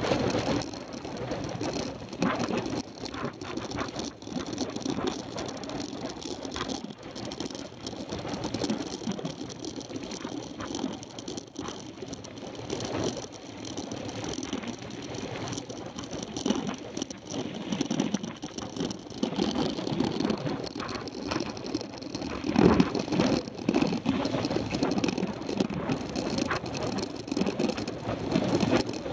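Mountain bike ridden over a rough dirt road, heard from a camera on its handlebars: tyres on the dirt with the bike rattling and knocking over the bumps, a run of harder jolts a little after the middle.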